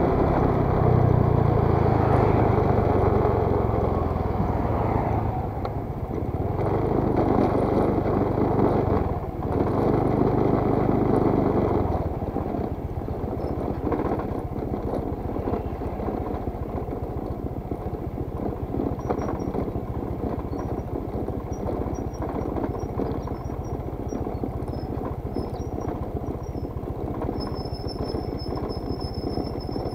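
Scooter engine running while it is ridden, with road and wind noise. About twelve seconds in it drops to a quieter, steady putter as the scooter slows on a rough gravel lane.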